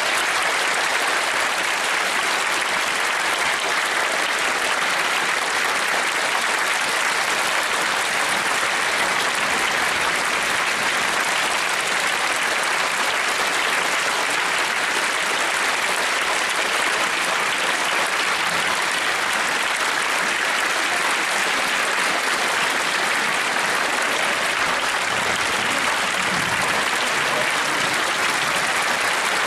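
Steady applause from a concert audience.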